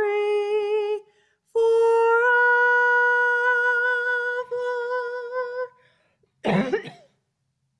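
A woman singing unaccompanied, holding notes with vibrato. A short note ends about a second in, and after a brief pause she holds one long note for about four seconds. A brief noisy burst comes near the end.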